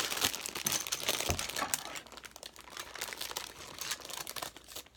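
Thin plastic LEGO parts bag crinkling as pieces are rummaged through, with small sharp clicks of plastic bricks, busiest in the first two seconds and then quieter.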